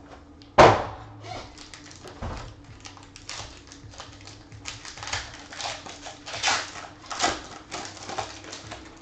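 A thump on the tabletop about half a second in, then a foil trading-card pack being crinkled and torn open in a quick run of crackles.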